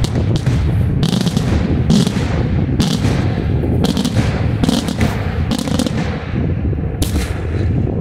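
Daytime fireworks: aerial shells bursting in a quick, irregular series of loud bangs, about one or two a second, over a steady low rumble. The bursts thin out toward the end, with a last bang about seven seconds in.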